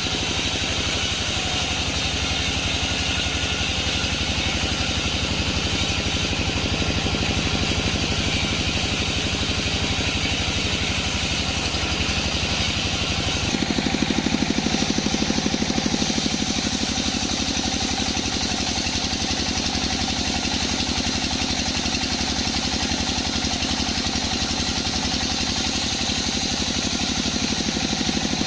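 Sawmill bandsaw machinery running steadily with an engine-like drone. About halfway through the sound turns deeper and briefly a little louder.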